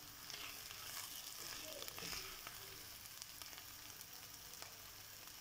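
Pork pieces sizzling faintly in hot oil in a clay pot, with many small crackling pops, while a wooden spoon stirs and scrapes through the meat.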